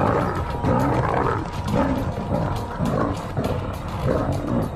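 Lionesses growling at each other as they scuffle, an aggressive first encounter that is more show than a real fight.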